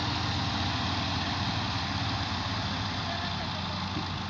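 Massey Ferguson 135 tractor engine idling steadily while it stands with a heavily overloaded trolley.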